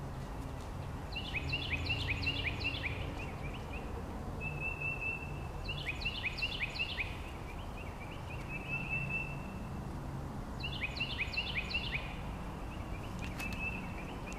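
A songbird singing over and over: three bursts of quick downward-slurred whistles, each followed a second or so later by one steady high whistled note, over a low, even background rumble.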